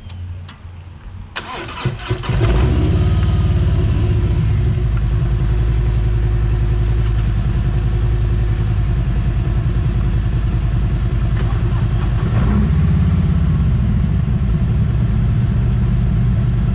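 A Harley-Davidson V-twin motorcycle engine cranks and starts about two seconds in, then settles into a loud, steady, pulsing idle.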